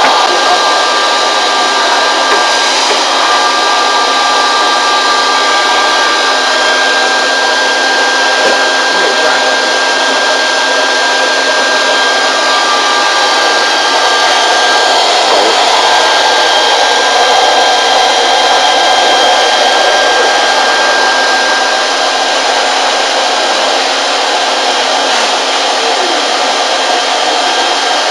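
Electric blow dryer running steadily: a loud rush of air with a constant high motor whine.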